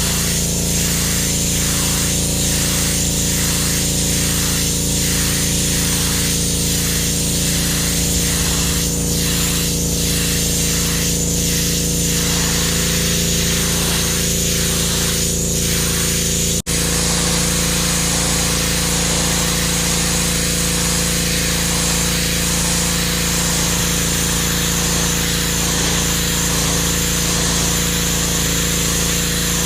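PowerStroke 2200 PSI gas pressure washer running steadily under load, its engine's drone beneath the hiss of the high-pressure water spray on concrete. The spray sound swells and fades about twice a second through the first half, with a brief break about halfway through.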